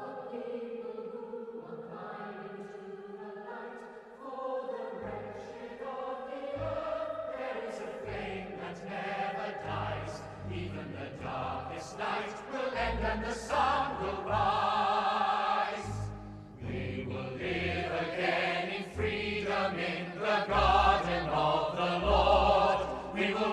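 Music with a choir singing, growing louder through the stretch, with deep low beats coming in about five seconds in.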